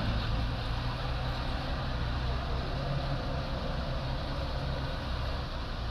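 Dump truck's engine running steadily under load as the truck climbs a steep, narrow dirt cut, moving away.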